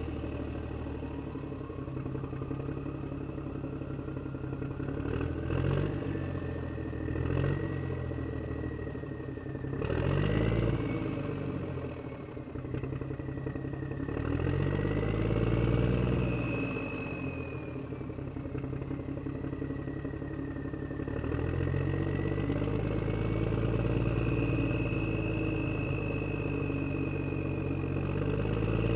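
Motor scooter engine running under way, its revs rising and easing every few seconds. A whine climbs as the scooter picks up speed and then rises and falls with the throttle.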